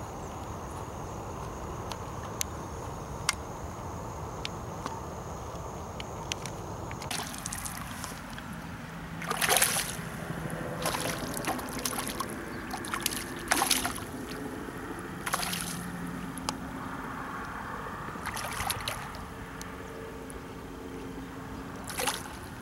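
A hooked black bass thrashing and splashing at the water's surface while it is played on the line, in several loud bursts from about a third of the way in. Before that, a steady outdoor hiss with a few light clicks.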